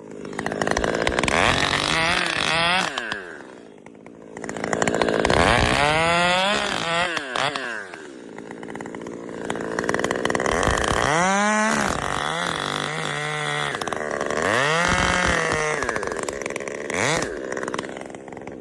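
Chainsaw cutting, its engine revving up and dropping back again and again, about four surges in all.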